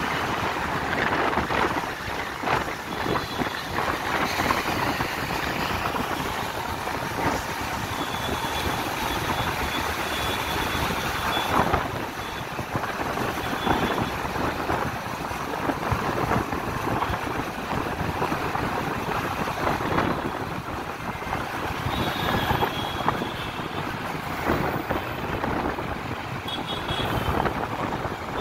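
Riding noise from a moving motorbike in road traffic: wind buffeting the microphone over the rumble of tyres and engines, with trucks, cars and auto-rickshaws close by. Faint high tones sound briefly a few times.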